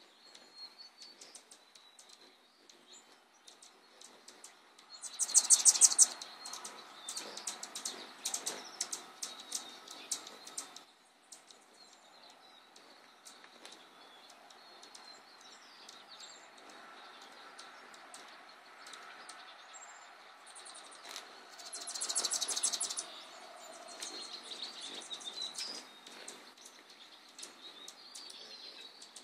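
Hummingbirds giving short, high chips and chatter as they hover and chase one another, with two louder bursts of rapid, buzzy chatter about five seconds in and again a little past twenty seconds.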